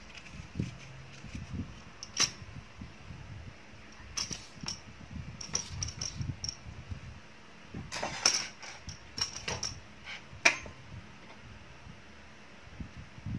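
Scattered clicks and light knocks of a wooden-handled metal vegetable peeler and a plastic basket being handled and set down, with soft rustling of pumpkin peel. The sharpest click comes about ten seconds in.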